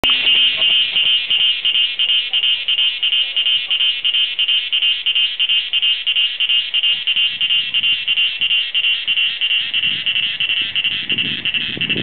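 Cicada singing: a loud, high, evenly pulsing buzz, about four pulses a second, held without a break.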